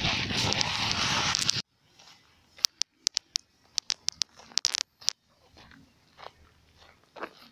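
Wind buffeting the microphone, cut off abruptly about a second and a half in. Then quiet, with scattered, irregular sharp clicks and crunches.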